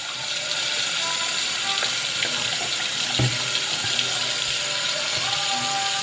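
Tap water running steadily into a bathroom sink, splashing over hands that rinse and squeeze a makeup sponge under the stream.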